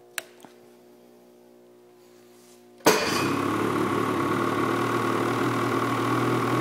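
Two sharp clicks, then about three seconds in a Ski-Doo E-TEC two-stroke snowmobile engine fires up abruptly and settles into a steady idle.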